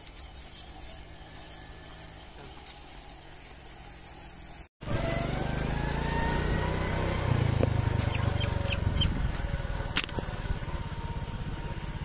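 Irregular faint crunching footsteps on dry crop stubble. About five seconds in, the sound cuts to a louder steady engine hum whose whine rises slowly in pitch, with a few sharp clicks.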